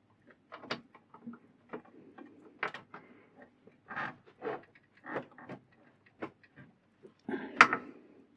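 Irregular light clicks, taps and knocks of hand work on a mini lathe's bed-mounting bolts, with one louder knock about three quarters of the way through.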